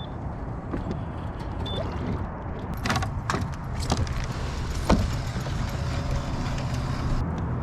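Steady low rumble of wind on the microphone, with several sharp knocks and clatters between about three and five seconds in as a bass is landed into a plastic fishing kayak.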